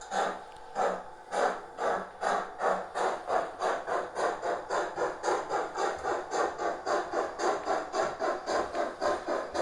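Digital sound decoder in a model BR 80 steam tank locomotive playing steam exhaust chuffs as it gets under way, the chuffs speeding up from about two a second to nearly four a second.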